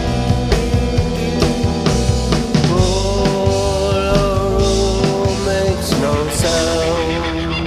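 Rock band music: drum kit beating steadily under electric guitars and bass, with a long held note through the middle.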